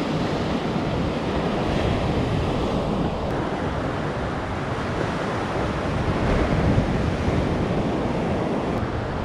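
Surf washing onto the beach in a steady rush, with wind buffeting the microphone.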